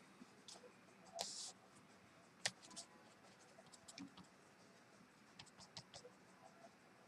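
Faint scratching and light ticking of a brush pen on paper. A short rustle comes a little over a second in, and a single sharp click, the loudest sound, about two and a half seconds in.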